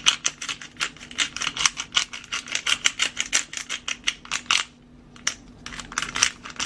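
Hand pepper grinder, a glass bottle of black peppercorns with a plastic grinding cap, being twisted back and forth: a rapid run of dry clicks and crunches, several a second, with a short break about four and a half seconds in before the grinding resumes.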